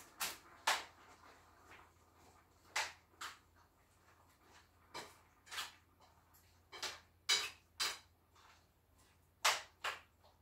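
Cooking utensils knocking and clinking against a pot on the stove: about a dozen short, sharp knocks at irregular intervals, several in quick pairs.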